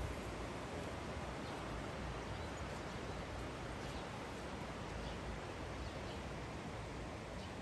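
Steady outdoor background noise, an even hiss with a few faint ticks scattered through it.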